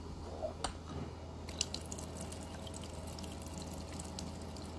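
Water dripping in a toy car wash playset, scattered small drips and plastic clicks over a steady low hum.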